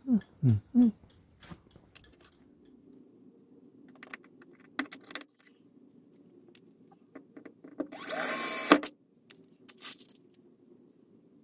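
A cordless drill runs in one short burst of about a second, about eight seconds in, working on the trike's rear panel; scattered tool clicks and taps come before it. At the very start there are three loud, short sounds that fall in pitch.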